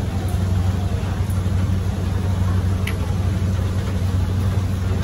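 Steady low engine hum, running without change, with a faint click about three seconds in.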